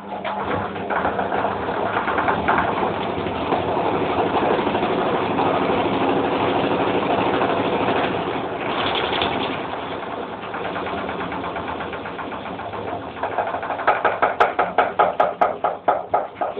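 Hoover Electra 1100F washing machine on its final spin, motor and drum running loud and steady, then easing off a little. Near the end a rhythmic pulsing of about three beats a second sets in.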